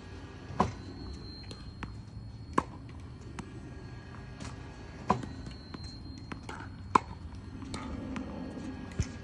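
Tennis ball impacts: five loud, sharp pops about two seconds apart, with fainter taps between them, as a tennis ball machine runs.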